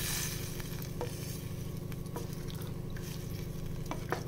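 Wooden spatula stirring a watery bottle gourd and potato stew in a pressure cooker, with a faint sizzle and a few light knocks of the spatula against the pot, over a steady low hum.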